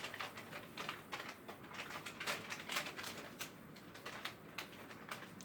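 Faint, irregular clicks and taps of small door-knob hardware being handled and fitted.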